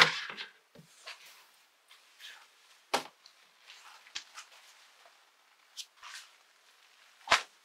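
Folded clothes rustling as they are handled and lifted out of a storage drawer, with two sharp knocks, one about three seconds in and a louder one near the end.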